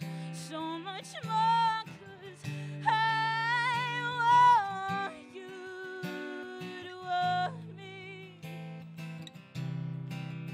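A woman singing live with her own acoustic guitar, holding one long note with vibrato a few seconds in, over steady strummed chords.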